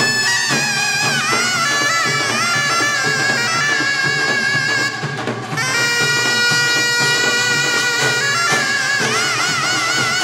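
Taepyeongso, the Korean conical double-reed shawm, playing a loud, piercing melody with pitch bends and wavering vibrato. It breaks off briefly about five seconds in, then resumes.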